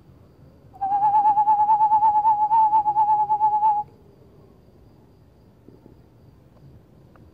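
An eastern screech owl call given as a lure: one loud, steady-pitched quavering trill about three seconds long, starting about a second in.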